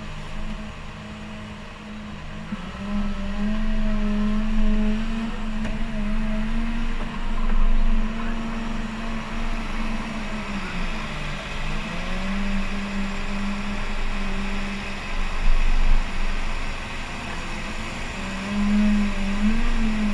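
Cat 930K wheel loader's diesel engine working under load, revving up a few seconds in, dipping briefly about halfway through and then pulling again as the bucket drives into the sand pile.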